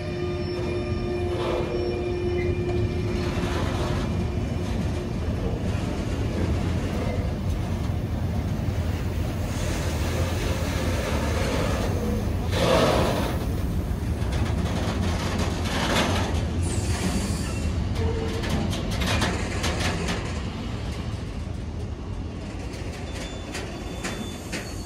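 Container freight train's wagons rolling past at close range: a steady low rumble of steel wheels on the rails, broken by irregular knocks and clatter. The clatter is loudest about 13 seconds in.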